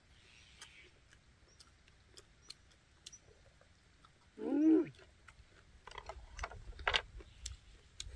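Eating sounds: faint chewing and crunchy clicks that get busier near the end. About four and a half seconds in comes one short voiced hum, rising then falling, from a person eating.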